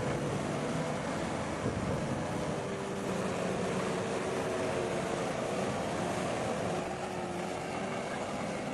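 Heavy diesel earthmoving machinery running steadily, its engine note wavering slightly in pitch and easing off a little about seven seconds in.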